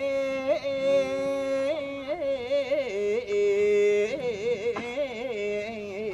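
A boatman singing a traditional Japanese folk song solo, a man's voice holding long notes with wavering, ornamented turns between them.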